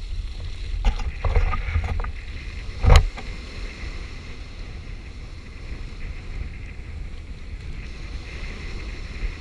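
Wind buffeting an action camera's microphone with a steady low rumble, over the soft wash of small waves breaking on the shore. A few knocks in the first three seconds, the loudest about three seconds in.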